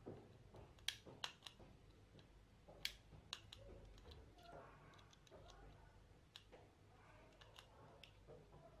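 Faint small clicks and ticks of a small screwdriver working a screw in the plastic underside of a computer mouse, with a few sharper clicks in the first three seconds.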